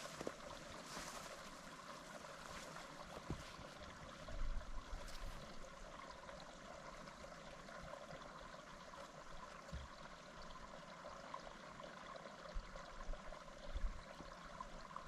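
Small mountain stream running steadily, a soft even rush of water. A few faint low bumps come and go, about four and fourteen seconds in.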